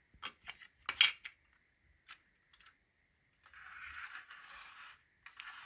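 Hard plastic model car parts clicking and clattering as they are handled and set down, with the loudest click about a second in. Two stretches of scraping or rustling follow.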